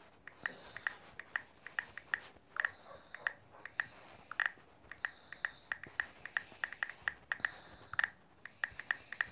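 Key clicks from typing on a smartphone's on-screen keyboard: a quick, irregular run of short taps, several a second, with brief pauses between words.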